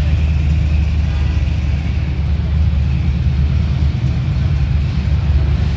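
Classic Dodge Charger muscle car's engine running at low speed as it rolls slowly, a steady low exhaust note.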